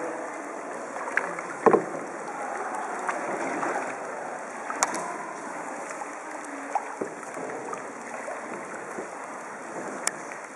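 Kayak paddles dipping into and splashing through calm water as a group paddles along, with a few sharp knocks about 2, 5 and 10 seconds in.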